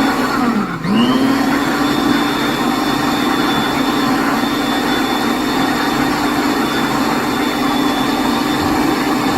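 Electric blender motor running while blending a dip: its whine dips briefly about a second in and spins straight back up, then runs steadily.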